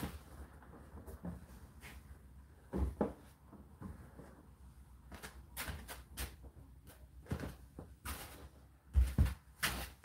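Dry laundry being pulled by hand out of a tumble dryer's drum: fabric rustling, with scattered knocks and thumps against the drum. The loudest are two sharp knocks about nine seconds in.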